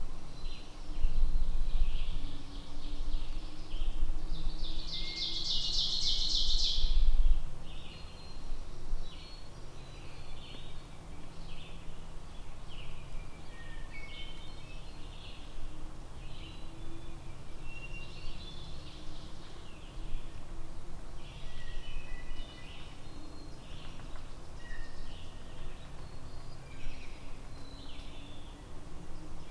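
A chorus of wild songbirds in spring woodland: many short, high songs and chirps from several birds. A louder, dense stretch of high song runs from about four and a half to seven and a half seconds in, over a low rumble that eases off after that.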